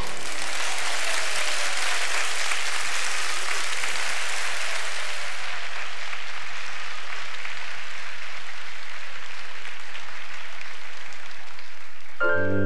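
A large audience of children and adults applauding, a steady, even clapping that eases a little after about five seconds. Just before the end, a piano starts playing.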